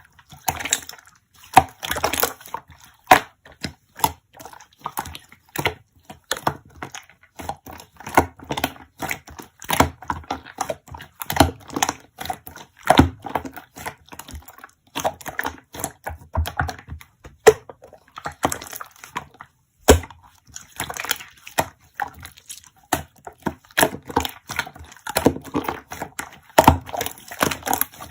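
Slime being squeezed, folded and poked by hand, giving irregular wet clicks, pops and crackles, with a few short pauses.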